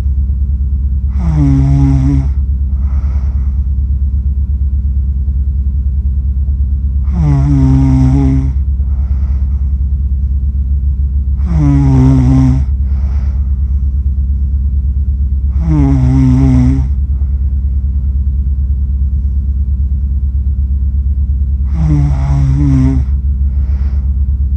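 A sleeping person snoring: five pitched snores about four to five seconds apart, each dipping in pitch at its start and followed by a softer breath. A loud, steady low hum runs underneath.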